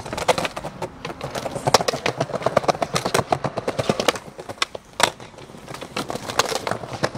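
Skateboard rolling: a steady low rumble of the wheels with rapid, irregular clacks and a few sharper knocks.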